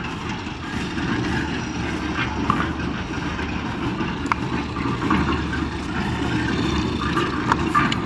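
Steady low rumble of an engine running, with a few faint knocks.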